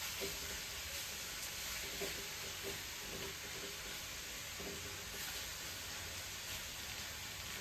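Grated raw mango frying in a little oil in an earthen pot: a steady, gentle sizzle.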